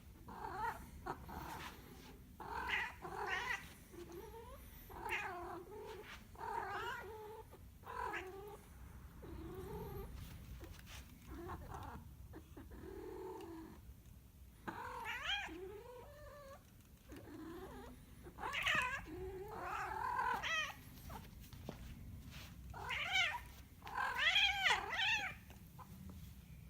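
Domestic cat yowling over and over in drawn-out, quavering calls that sound like a sheep bleating. The loudest, most quavering cries come near the end.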